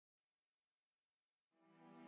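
Near silence, then soft, sustained background music fades in about a second and a half in.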